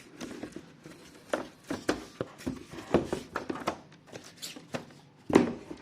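Unpacking and handling noise: irregular clicks, taps and rustles as the keyboard and its box packaging are handled, with one louder knock near the end.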